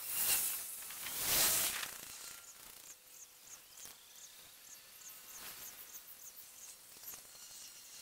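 Outdoor ambience: two loud rushes of hissing noise in the first two seconds, then a quieter stretch with a run of faint high-pitched chirps or ticks, about two a second.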